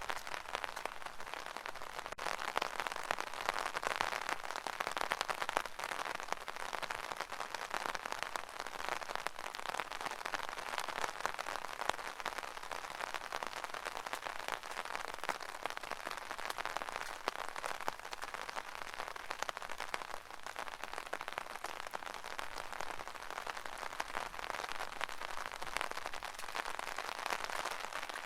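Rain falling on an umbrella canopy: a steady, dense patter of many small drop hits that never lets up.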